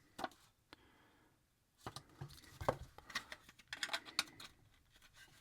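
Small plastic model-kit parts clicking and tapping as they are handled and pressed together: two isolated clicks near the start, then a run of quick clicks and taps from about two seconds in.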